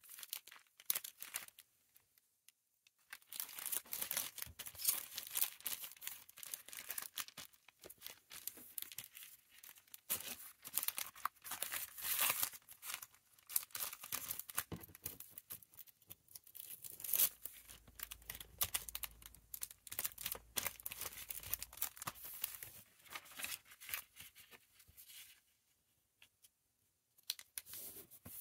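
Plastic packaging crinkling and rustling as hands handle and fold bags, bubble wrap and a mailer on a desk. It goes in fits and starts, with short pauses near the start and near the end.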